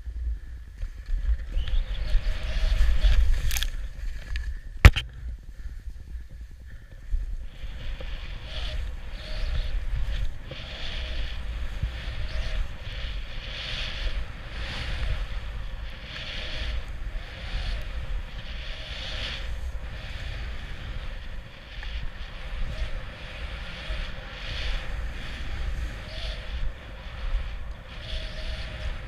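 Skis hissing through snow in linked turns, the hiss swelling and fading about once a second through the second half, over a low rumble of wind buffeting the head-mounted camera's microphone. A single sharp knock about five seconds in.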